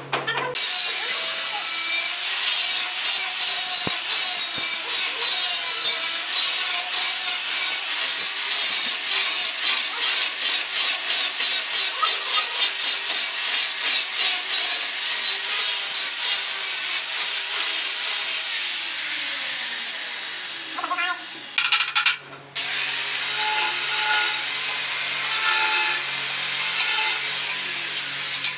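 Handheld angle grinder cutting a hole in a ceramic wall tile, a harsh grinding made of quick repeated strokes as the disc is worked back and forth, stopping briefly about 22 seconds in and then starting again.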